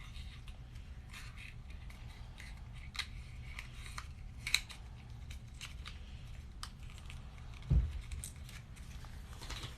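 Scattered small crisp clicks and crinkles of cosmetic packaging being handled, with a dull thump about eight seconds in.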